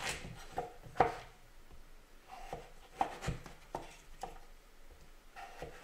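Chef's knife slicing a courgette lengthwise on a bamboo cutting board: a handful of irregular cutting clicks and knocks of the blade on the board, the sharpest about a second in and around three seconds in.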